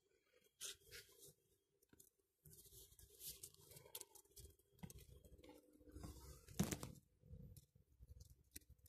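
Faint, irregular scuffing, rustling and clicking, with one sharper click about six and a half seconds in.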